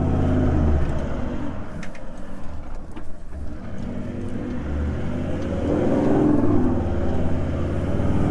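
4WD engine working through soft sand dunes, the revs rising and falling as the driver picks a way through, with a couple of faint knocks about two and three seconds in.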